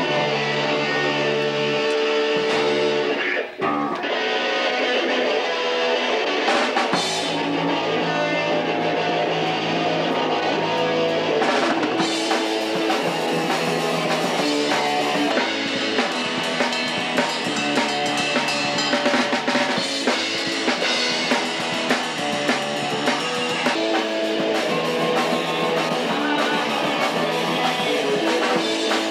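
Live rock band playing: electric guitar, bass guitar and drum kit, with sustained guitar chords over a steady beat. The band cuts out for a split second about three and a half seconds in, then comes straight back in.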